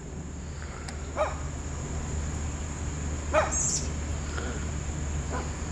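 A dog barking a few times, two loud short barks and several fainter ones, over a steady high-pitched whine and low hum.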